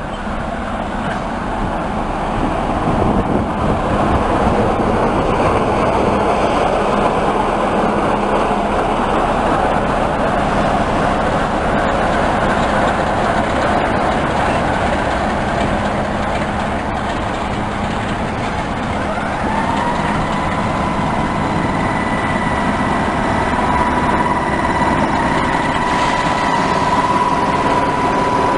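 Class 46 'Peak' diesel locomotive D182 (46045), its Sulzer twelve-cylinder engine running as the locomotive rolls slowly past at close range, growing louder over the first few seconds. About two-thirds of the way through, a high steady whine rises in and holds.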